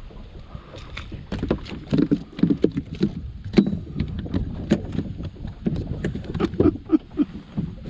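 A small bass flopping on a boat's carpeted deck: a run of irregular slaps and thumps, several a second, starting about a second in.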